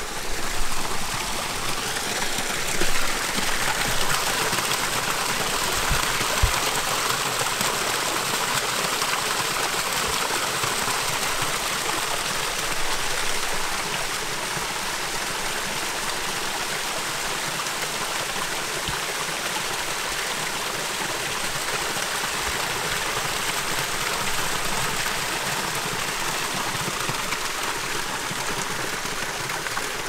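Steady rush of running water on a mountain trail, swelling a little a few seconds in and then holding even, with a few soft knocks in the first several seconds.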